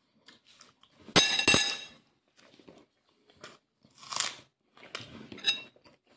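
A man chewing and crunching a mouthful of pincho moruno with bread, garlic and onion. About a second in come two sharp clinks of cutlery, the loudest sounds, then softer irregular chewing noises.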